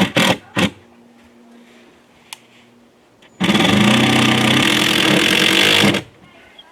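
A handheld power tool runs for about two and a half seconds, starting and stopping abruptly, after a few sharp knocks in the first second.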